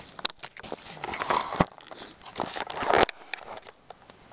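Handling noise from a camera being picked up and moved: two spells of rustling with three sharp knocks, the last about three seconds in.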